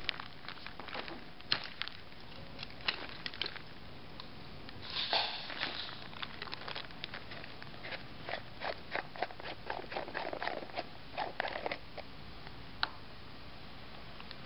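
Plastic liner film crinkling and crackling under hands, with scattered sharp clicks as the filling adapter is twisted off the liner's spout. There is a denser stretch of rustling about five seconds in and another near ten to twelve seconds.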